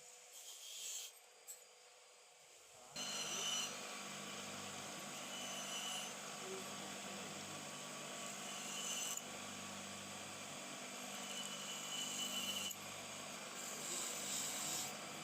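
Rust being worked off a metal knife part with an abrasive tool, a steady scraping and grinding that starts about three seconds in after a few short hissy strokes.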